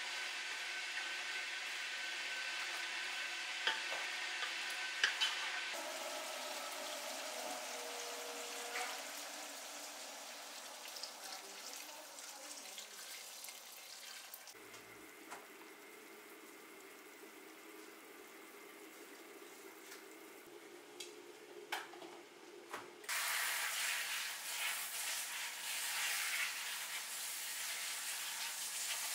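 Beef and celery sizzling in hot oil in a pot while a wooden spatula stirs them, with a few knocks of the spatula. The sizzle fades after about six seconds. About twenty-three seconds in, water from a faucet sprayer starts pouring onto fresh herbs in a bowl.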